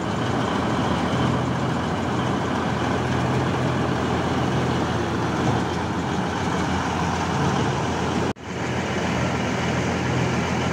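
Steady drone of heavy machinery running, with a low hum under it; the sound drops out for an instant about eight seconds in.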